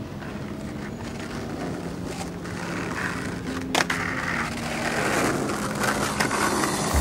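Skateboard wheels rolling on asphalt, growing louder as the rider comes close, with one sharp clack about four seconds in.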